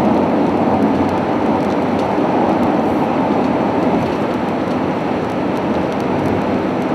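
Steady rushing road noise inside a moving car on a wet road, tyres on wet pavement and wind, with light rain ticking on the windshield.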